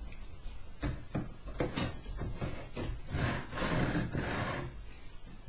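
Hands working on an acrylic 3D printer frame while tensioning its Y-axis belt: a few light clicks and knocks, then a stretch of rubbing and scraping from about three seconds in.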